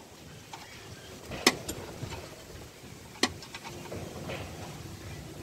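Three sharp metallic clicks about two seconds apart, with lighter ticks between, from the crankshaft of a freshly rebuilt Suzuki Esteem 1.3-litre engine block being turned by hand, its new pistons rising and falling in the bores.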